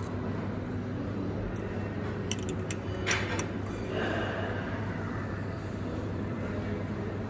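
Steady low hum from a running Hario halogen beam heater as it heats water in a glass syphon flask, over a background of room noise. A few light clicks and a sharper clink of glassware come about two to three and a half seconds in.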